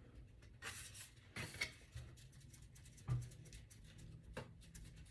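Quiet handling sounds in a small room: two brief rubbing noises in the first two seconds, a soft knock about three seconds in and a small click later.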